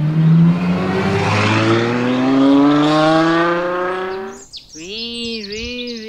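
Apollo Intensa Emozione hypercar's V12 engine accelerating hard, its pitch climbing steadily for about four and a half seconds before it cuts off. High, warbling chirps follow near the end.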